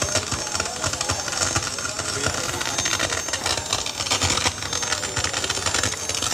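Experimental noise performance: a dense, continuous texture of rapid clicks, crackles and rattling, with a few thin steady high tones running through it.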